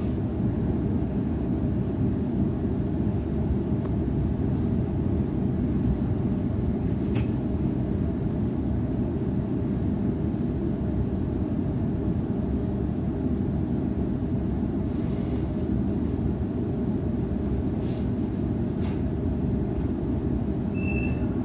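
Steady low rumble of a Waratah electric suburban train heard from inside the carriage as it runs along the line. A few faint clicks come through, and a short high beep sounds near the end.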